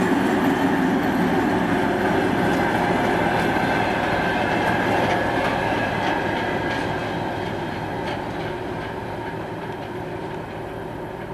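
A train rolling past, its wheels rumbling and clicking over the rail joints, the sound fading steadily as it moves away.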